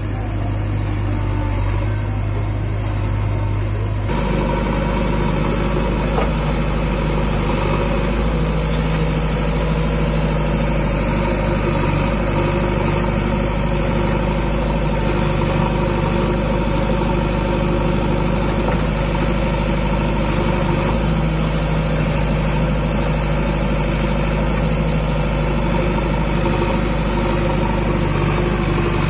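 Diesel engine of a JCB 3DX backhoe loader running steadily. About four seconds in, the engine note changes and grows a little louder, then holds even.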